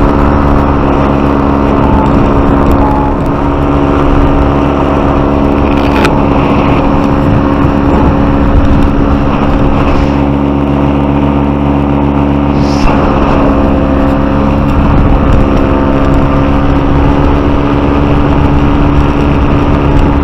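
Paramotor engine and propeller running steadily in flight, holding one constant pitch throughout.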